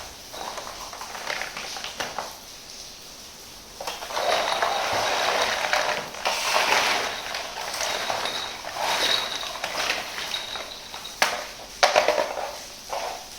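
Plastic toy kitchen pieces and their packaging being handled: rustling and crinkling through the middle, with scattered clicks and taps and a few sharper clicks near the end.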